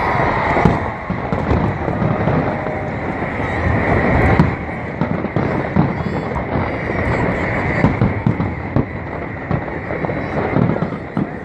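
Aerial fireworks going off in a dense, continuous run of bangs and crackles.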